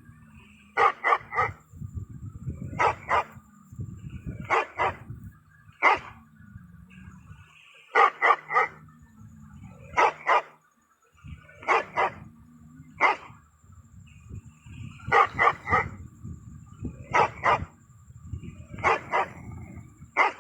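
A dog barking repeatedly, a bark every second or two, some coming singly and some in quick runs of two or three, over a low steady hum.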